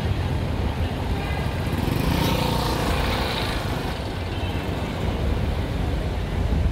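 Street traffic noise: a motor vehicle passes about two to four seconds in, over a steady low rumble.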